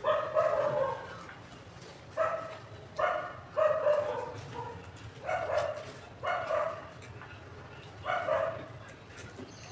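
A dog barking repeatedly, about eight short barks coming singly or in pairs every second or two.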